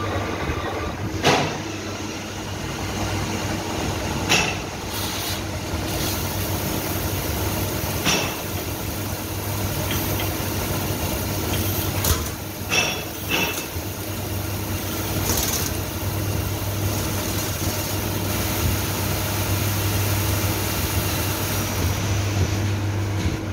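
CNC lathe running, turning a steel hydraulic-jack sleeve under coolant spray: a steady machine hum and hiss, broken by a few sharp knocks at about 1, 4, 8 and 12–13 seconds in. The hiss dies away near the end as the cut finishes.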